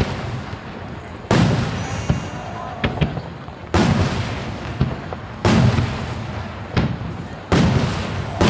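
Large aerial firework shells bursting, four heavy booms roughly two seconds apart, each trailing off in a long rumbling echo, with a few smaller sharp cracks between them.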